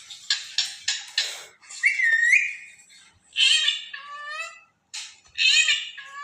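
A pet parrot calling: four quick harsh squawks, a short whistle, then two longer high-pitched calls that slide downward in pitch.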